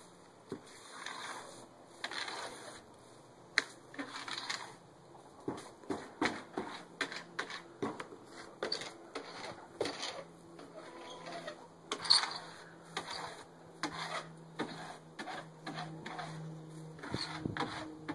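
A rake scraping old bedding and litter out of a chicken coop's nest box, in a run of short scratchy strokes with occasional sharp knocks of the tool.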